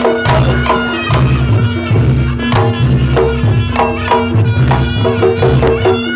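Reog Ponorogo gamelan music: a kendang drum beaten in a fast, driving rhythm, with a large hanging gong and the nasal, reedy melody of a slompret shawm over a held steady tone.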